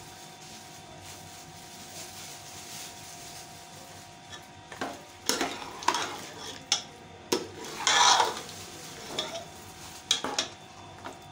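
Metal ladle stirring a thick meat-and-potato masala in a pressure cooker pot over a low sizzle. After about four seconds comes a run of scrapes and knocks of the ladle against the pot, the longest and loudest near the end.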